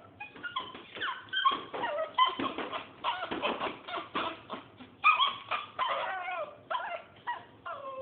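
A dog whining and yelping in a rapid string of short, high calls that slide up and down in pitch.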